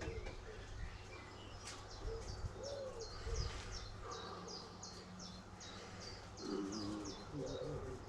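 A bird calling: a steady series of short, high notes, about two and a half a second, starting about two seconds in, with some lower pitched calls near the end.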